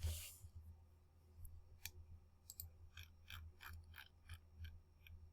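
A faint run of light clicks, about a dozen spread unevenly over three seconds starting about a second and a half in, over a low steady hum; a short hiss comes at the very start.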